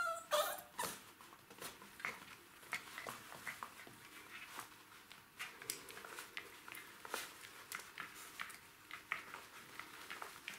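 Jack Russell Terrier puppies tugging at and mouthing a rope-and-rubber-ball toy: a brief high-pitched squeal right at the start, then a run of small scuffling and chewing clicks.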